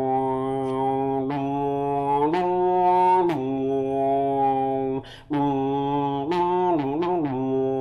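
Beatboxer's low, steady vocal drone, held as long notes that briefly dip in pitch now and then, with a short break about five seconds in.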